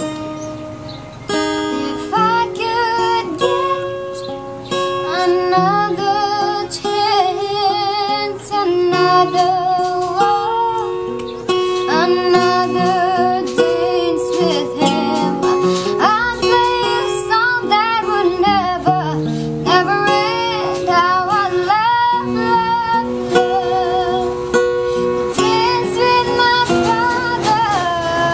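Background song: a voice singing a melody with vibrato over plucked-string accompaniment.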